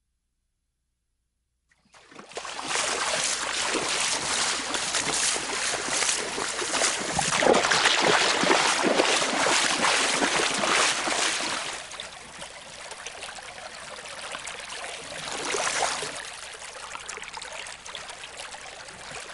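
Running water of a stream, with splashing. It starts about two seconds in, is loud for about ten seconds, then drops to a softer flow.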